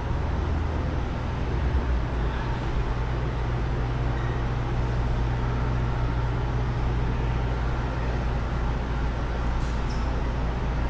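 Steady low hum and even background noise of a large indoor exhibition hall, with no distinct events.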